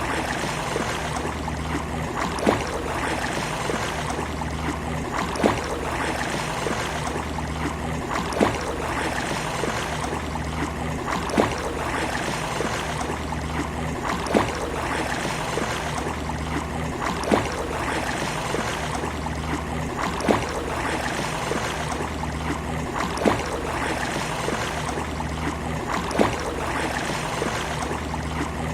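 Water lapping and gurgling steadily, with a short sharp knock or splash about every three seconds in an even, repeating pattern.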